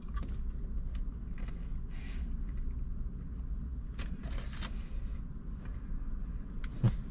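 A man chewing French fries, soft mouth noises and a few faint crunches, over a steady low rumble inside a car.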